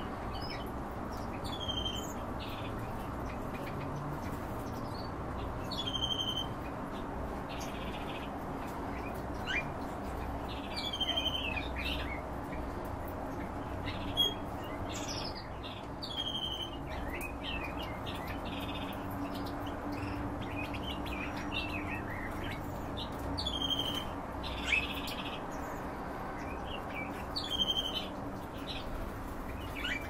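Small caged finches chirping, with short high calls, many dropping in pitch, coming every second or two over a steady low hum.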